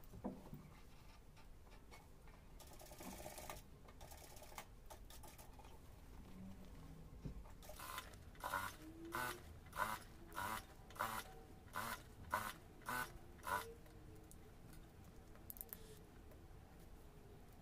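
Industrial lockstitch sewing machine stitching a corduroy cap in about ten short start-stop bursts, roughly two a second. A brief rustle of fabric being handled comes about three seconds in.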